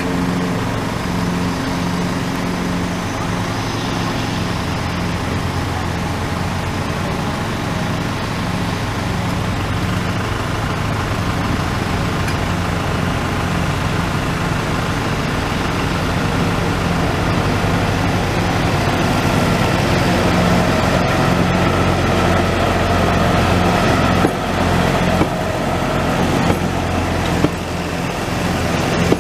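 Narrow-gauge diesel locomotive's engine running steadily as it approaches and passes, growing louder, with wheels clacking over the rails near the end as the carriages go by.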